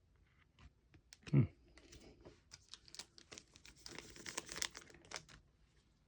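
Foil booster pack of trading cards crinkling and being torn open, with scattered clicks and a single dull thump about a second and a half in.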